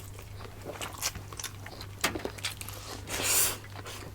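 Close-miked eating: a run of small clicks of biting and chewing, with one louder hiss about three seconds in.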